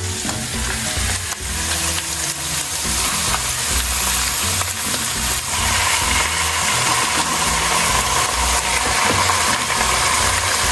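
Chicken pieces sizzling in hot olive oil with onions in a frying pan as they are laid in. The sizzle grows louder over the first few seconds, then holds steady.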